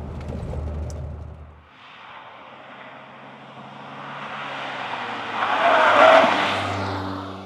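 Saab 9000 T16's turbocharged four-cylinder, fitted with an aftermarket exhaust, drives past on a country lane. A low drone heard inside the cabin for the first couple of seconds gives way to engine and tyre noise that builds as the car approaches, is loudest about six seconds in as it goes by, then fades.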